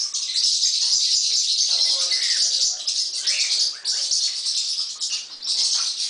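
Pet parrots chattering, with a couple of short chirps a few seconds in, over a steady high hiss.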